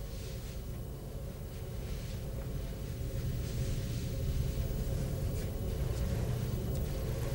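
A low, steady rumbling drone with faint soft rustles over it, growing a little louder about halfway through.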